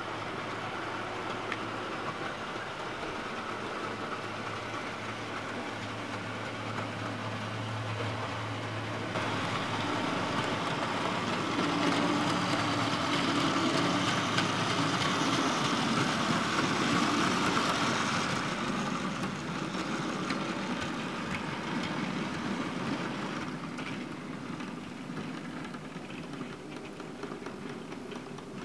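Lima OO-gauge model Class 52 'Western' diesel locomotive running along the track, its small electric motor whirring and wheels rattling on the rails. It grows louder about ten seconds in as it passes close, then fades away.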